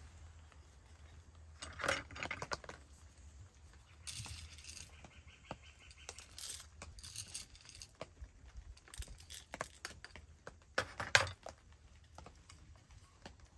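Whole coffee beans spooned from a wooden box into a stainless-steel hand coffee grinder, rattling and clinking in short irregular clatters, with light knocks of wood and metal; the loudest clatter comes near the end.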